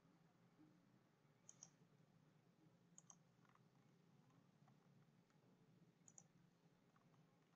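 Faint computer mouse clicks, mostly in quick pairs, heard three times over near-silent room tone.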